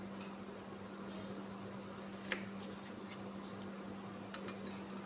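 Kitchen knife slicing through a steamed colocasia leaf roll and striking the steel plate beneath: one sharp click about two seconds in and a quick run of three clicks near the end, over a steady low hum.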